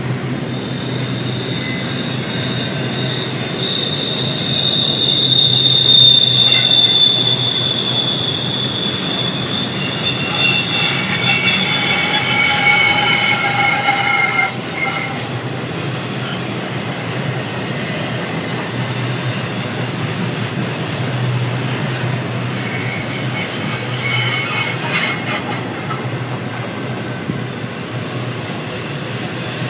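Railroad cars rolling past, with a steady low rumble under high-pitched wheel squeals at several pitches that come and go.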